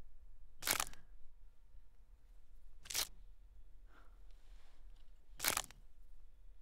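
Vampire fang-popping sound effect: three short, sharp hissing snaps, about a second in, at three seconds, and near the end, as fangs pop out and draw back.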